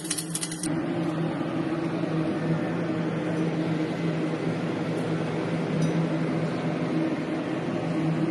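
Welding machine's steady electrical hum with a hiss. A sharp crackling stops less than a second in.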